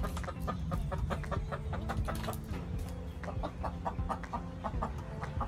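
Backyard hens clucking: a long string of short, repeated clucks, coming thicker in the second half.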